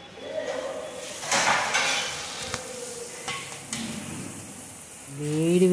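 Puris deep-frying in a large kadai of hot oil, the oil sizzling steadily with a louder surge about a second and a half in. A few light clicks of a metal slotted spoon against the pan follow as the puris are turned.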